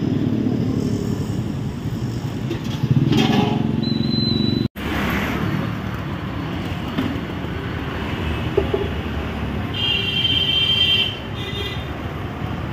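Roadside traffic noise: a steady din of passing vehicles, including motorbikes. There is a brief dropout just under five seconds in, and a high tone lasting about a second near the end.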